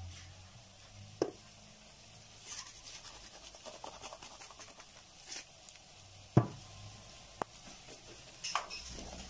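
Diced zucchini and mushrooms sizzling quietly in a nonstick skillet over low heat, stirred with a plastic spatula. A few sharp knocks of the spatula on the pan; the loudest comes about two-thirds of the way through.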